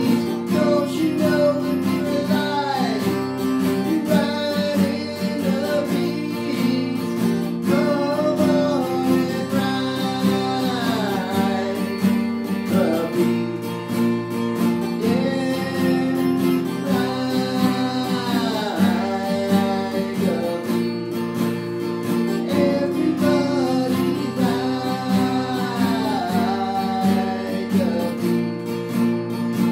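Acoustic guitar strummed steadily under a melody line that bends and slides in short repeated phrases, an instrumental stretch of a song with no words sung.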